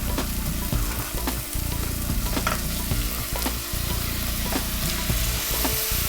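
Pieces of mutton on the bone sizzling in a pot of hot oil, onions and spice paste, with a spoon stirring and knocking against the pot now and then.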